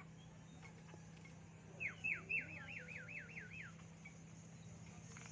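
Javan myna calling: a rapid run of about eight descending whistled notes, each sliding down in pitch, lasting about two seconds and starting about two seconds in.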